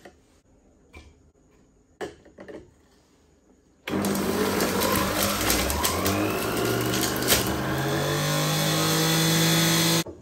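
A few faint knocks, then a Black+Decker centrifugal juicer starts about four seconds in and runs loudly as fruit is pushed down its chute, its motor pitch creeping slowly upward. It stops suddenly near the end.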